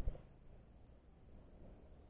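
Faint low rumble of a motorcycle riding slowly over a rough lane, with low thumps at the very start as the wheels cross a concrete road hump.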